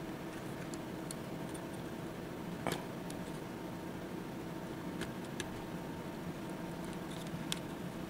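Small plastic clicks and faint rustling as Cat5e conductors are pressed by hand into the slots of a 110-style patch panel, the sharpest click about three seconds in, a few lighter ticks later, over a steady low hum.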